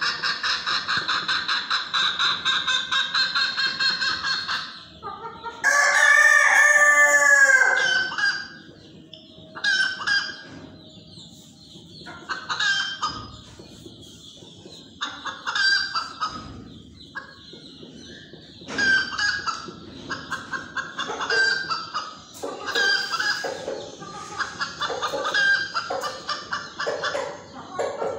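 Domestic chickens calling: a fast, even run of clucks for the first four seconds, then a rooster crows once, long and loud, about six seconds in. After that, short bursts of clucking come and go.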